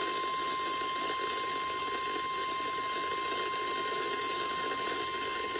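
NOAA Weather Radio 1050 Hz warning alarm tone: a single steady high tone over radio hiss. It is the attention signal that comes before a severe weather warning is read.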